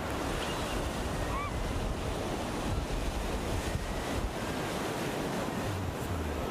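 Small ocean waves washing onto a sandy beach in a steady wash of surf, with wind on the microphone.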